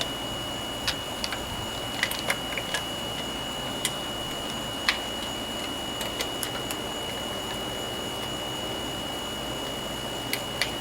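Scattered light clicks and taps of a hand tool and small parts as the lawnmower's air cleaner is screwed back together, over a steady hiss.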